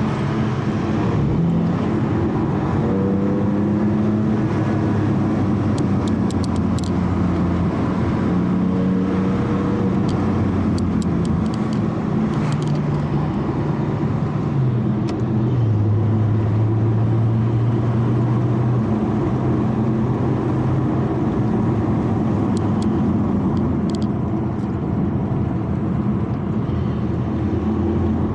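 Porsche Cayman GT4's naturally aspirated flat-six running at low revs while the car rolls gently downhill, heard from inside the cabin over steady tyre and road noise. The engine note shifts up and down a few times and settles into a lower drone about halfway through, with a few faint ticks along the way.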